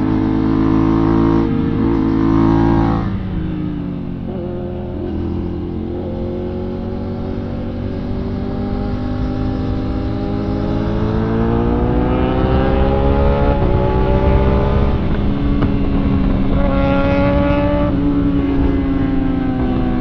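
Sport motorcycle engine pulling hard with wind noise over the microphone. The revs drop about three seconds in, climb steadily for several seconds, drop again after the middle at a gear change, and rise once more.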